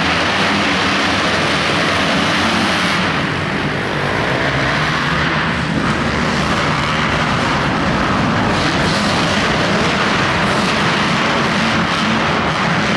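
A pack of motocross dirt bikes racing, many engines revving hard together in a loud, steady din, easing slightly for a moment about three to four seconds in.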